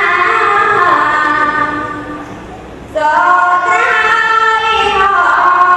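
A voice chanting a Khmer Buddhist sermon in the sung 'tes kre' style, with long drawn-out notes sliding in pitch. One phrase fades out about two seconds in; a new phrase starts a second later and falls in pitch near the end.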